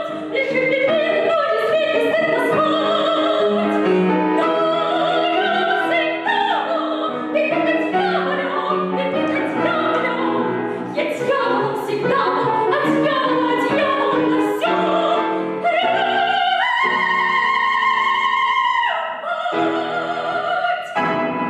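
Soprano voice singing an operetta song in classical style with piano accompaniment, holding one long high note about three-quarters of the way through, then a short closing phrase.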